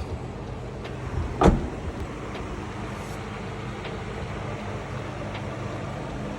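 Steady workshop background noise with a low electrical hum. A single short thump comes about a second and a half in, and a few faint clicks follow.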